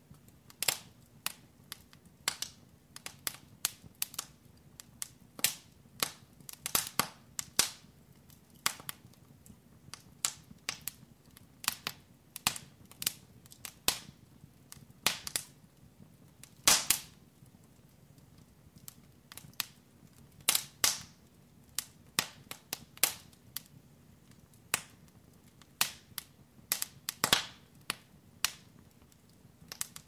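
Wood fire in a fireplace crackling: irregular sharp pops and snaps, a few to several a second, with a louder pop about halfway through and another near the end, over a faint steady low hum.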